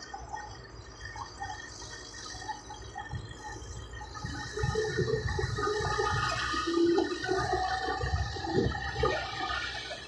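Small crawler bulldozer working as it pushes soil and rock: its diesel engine runs with a rough rumble, and the noise grows louder about halfway through as the machine works the pile.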